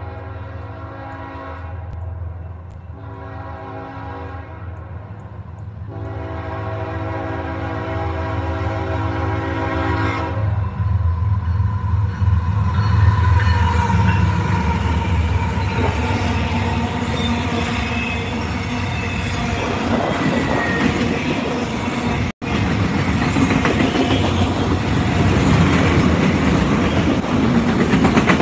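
A freight train's diesel locomotives sound a multi-note air horn in three blasts, the last one about four seconds long ending some ten seconds in, over a low engine rumble that grows loud as the locomotives pass close by. Then the clickety-clack and rattle of the freight cars' wheels rolling past on the rails.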